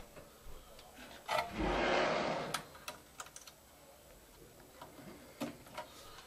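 Scattered clicks and rattles of wires and plastic connectors being handled on a furnace control board. About a second and a half in comes a louder rushing noise lasting about a second.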